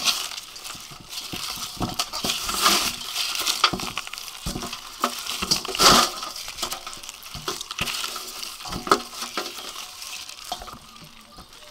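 Hands scrubbing live eels with handfuls of green leaves in a stainless steel basin: wet rustling and squelching with irregular knocks and clinks against the metal bowl.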